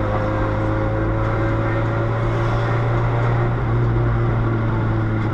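Toyota Vios four-cylinder engine running through a broken, leaking exhaust, giving a loud, raspy note like a rally car. The engine note holds steady with its pitch rising slowly, as under gentle acceleration while driving.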